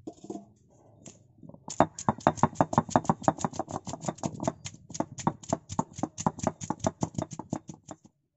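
Heavy stone roller pounding garlic cloves against a flat stone grinding slab: a few scattered knocks, then from a couple of seconds in a fast, steady run of knocks, about five a second, that stops just before the end.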